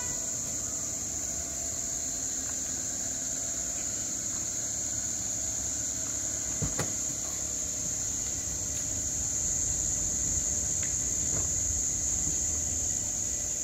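Crickets trilling steadily at a high pitch over a low rumble, with a single sharp click about seven seconds in.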